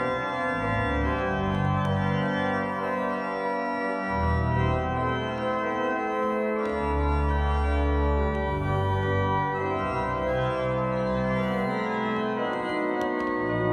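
Church organ played from a three-manual console: full sustained chords over low bass notes that change every second or two.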